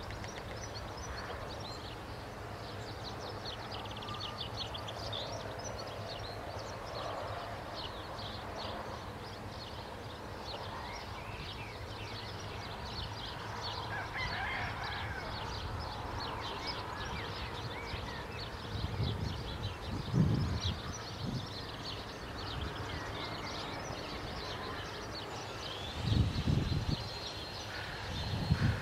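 Outdoor bird chorus: many short bird chirps and calls over a steady background hiss, with a few low rumbles, the loudest moments, about two-thirds of the way through and near the end.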